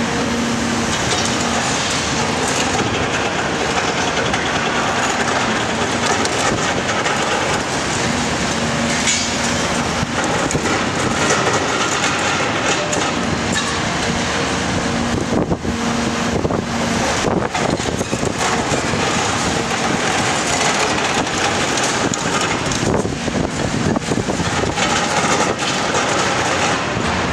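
Cat 340SB demolition excavator's diesel engine and hydraulics working under load while its Cat MP 345 multi-processor jaws crush concrete, with continual cracking, grinding and clattering of falling rubble.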